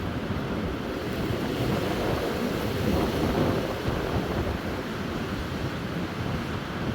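Strong wind buffeting the microphone over the rush of river water, a rough, unbroken noise that swells a little around the middle.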